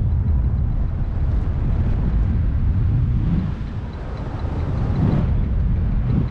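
Wind rushing and buffeting over the microphone in paragliding flight, a loud, steady low rumble that eases a little around three to four seconds in.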